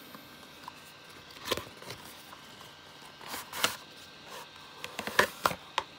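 Cardboard packaging handled: a small inner box slid out of its printed card sleeve, with scattered scrapes and light taps, and a few sharp clicks in the last second or so, the loudest of them.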